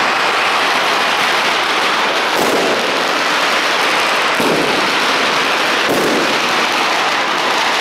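Fireworks and firecrackers going off in the street: a dense, continuous crackle with louder bangs about two and a half, four and a half and six seconds in.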